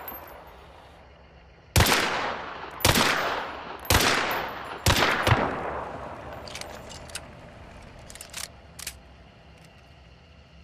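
Five pistol shots, about a second apart with the last two close together, each ringing out in a long echoing decay, followed by a few faint clicks.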